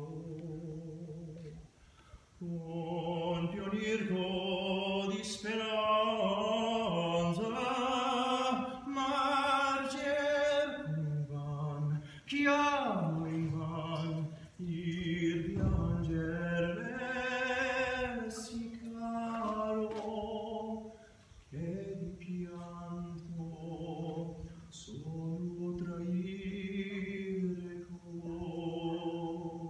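A gondolier sings an Italian song alone and unaccompanied, in a man's voice, holding long notes with vibrato and pausing briefly between phrases.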